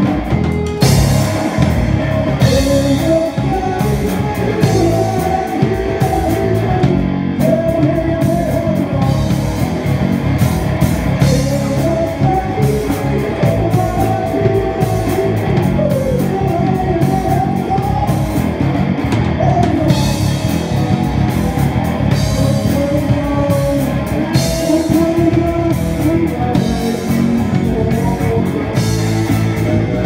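Rock band playing loud and without a break: electric bass guitar, electric guitar and drum kit, with a steady beat and a melodic line that bends in pitch.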